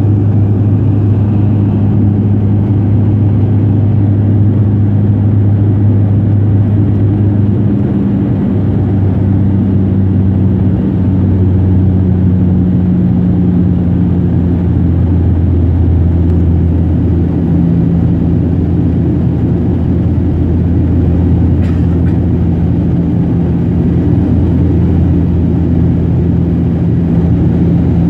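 Cabin drone of a Widerøe Dash 8's turboprop engines and propellers in the climb after take-off, heard from inside the cabin: a steady, loud hum over rushing air. The hum steps down in pitch about eight seconds in and again partway through.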